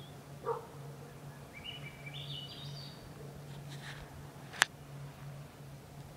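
A small bird singing a short phrase of high notes that step upward, over a steady low hum. A short, lower-pitched call comes about half a second in, and a single sharp click stands out about two-thirds of the way through.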